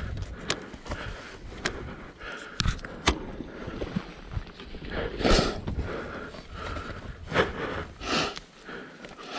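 A person breathing hard from exertion, with loud gasping breaths a little past halfway and again near the end. A few sharp clicks and knocks fall in the first three seconds.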